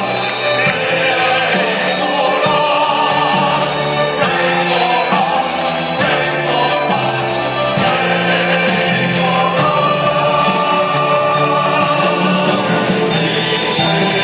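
A choir of male priests singing together in chorus, with sustained notes that change every second or two.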